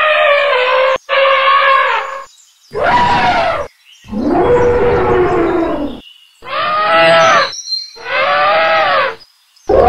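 A string of about six elephant trumpet calls, each a second or so long with short gaps between, several rising then falling in pitch. Each starts and stops abruptly.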